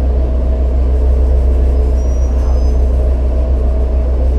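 2011 New Flyer C40LF transit bus running steadily, its Cummins Westport ISL-G natural-gas engine giving a deep, even rumble with a steady hum above it. A faint, brief high squeal is heard about two seconds in.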